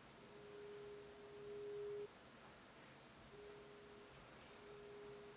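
A faint, steady pure tone, a mid-pitched whine, held for about two seconds, then back twice in shorter stretches near the end, over near silence.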